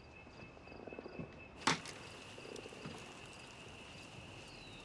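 Steady high trill of insects with faint repeated chirps, and a single sharp knock about a second and a half in, with soft rustling before and after it.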